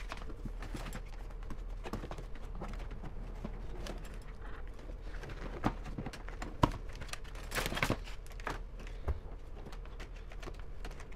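Hands handling plastic interior trim and wiring along a door sill: scattered light clicks and taps, with a few sharper knocks around the middle.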